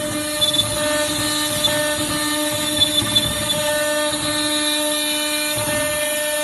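Spindle of a small CNC router running with a steady, pitched whine made of several fixed tones, with a few brief sharp spikes about half a second and three seconds in.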